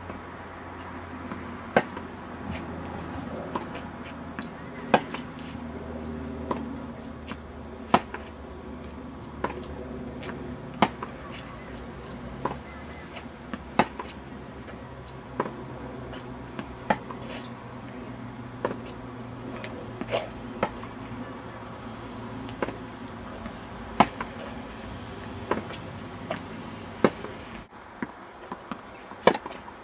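Tennis ball struck back and forth by rackets in a steady practice rally: a sharp pop about every one and a half seconds, alternately louder and softer, over a steady low background rumble.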